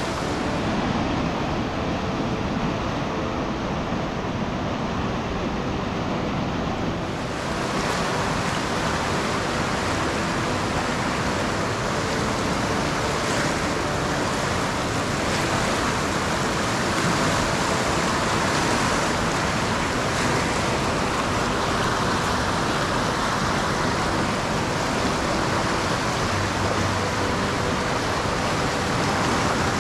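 Fast, silt-laden river running in rapids: a steady rush of turbulent water.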